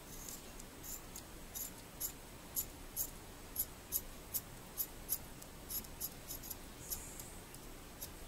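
Scissors snipping in light, sharp clicks, about two a second, trimming a strip of tourniquet into an extra sealing cap on a brass valve cartridge from a dripping mixer tap.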